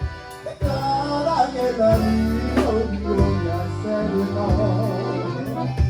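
Live conjunto band playing a passage without words: a melody line over bass notes, with regular drum hits.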